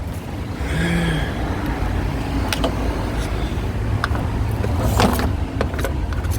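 Steady low rumble of a motor vehicle, with a few sharp clicks and knocks about two and a half and five seconds in.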